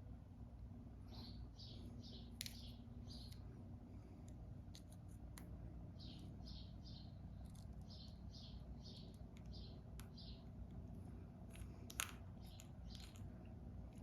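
Faint runs of four or five quick, high chirps, repeated several times, like a small bird calling. A few sharp clicks and taps come between them, the loudest near the end.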